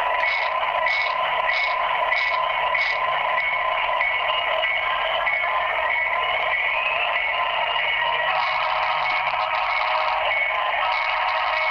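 A locomotive sound recording played through a phone on speakerphone: a thin, tinny, steady drone with held tones and, in the first few seconds, a regular pulsing about twice a second.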